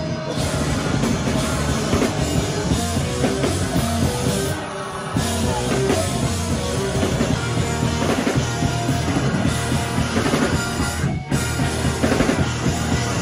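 Loud live rock band playing: drum kit with cymbals, and electric guitars and bass. The top end drops out briefly a third of the way in, and the band cuts out for an instant about two seconds before the end, then comes straight back in.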